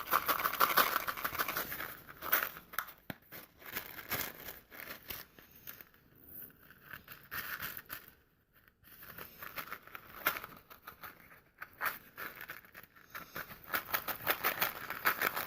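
Small plastic airsoft BBs being hand-loaded through a cut-down paper cup into a sock: a run of quick light clicks and rattles mixed with paper crinkling, with a brief pause about halfway through.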